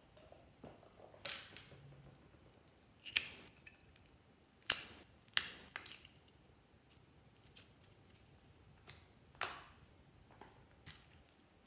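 Handling of small plastic toy containers over a dish of slime, giving a scattering of short, sharp plastic clicks and taps a second or more apart, the loudest a little before the middle.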